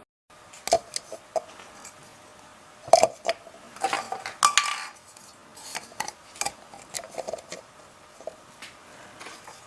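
Hard objects clinking and knocking together in an irregular string of sharp clinks, some with a short ring, as when small metal or glass parts are handled.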